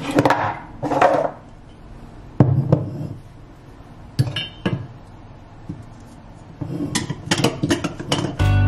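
Clinks and knocks of a glass blender jar and its plastic-and-metal blade base being handled and screwed together, in scattered single knocks and then a run of quick small clicks near the end.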